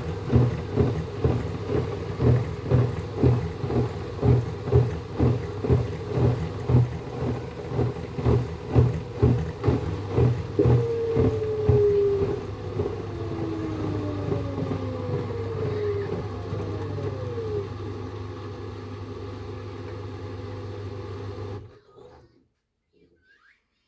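LG F2J5WN3W front-loading washing machine running with a rhythmic thumping, about two beats a second. About eleven seconds in, the thumping gives way to a steady motor hum and falling whines as the drum slows, and the hum cuts off suddenly near the end: a drum slowdown that the title puts down to suds lock.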